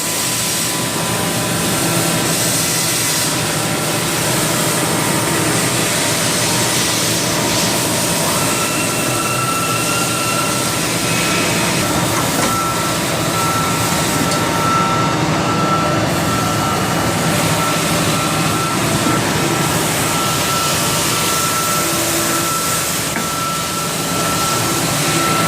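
Chip auger of a Haas VF-4SS CNC vertical machining center running: a steady mechanical noise, with a thin steady whine coming in about eight seconds in.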